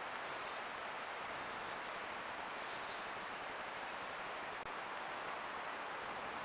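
Steady hiss from a trail camera's microphone in the open air, with a few faint, short, high chirps.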